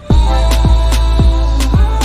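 Background music with a steady beat: kick drum and hi-hats under sustained synth chords, coming back in after a brief dropout just before.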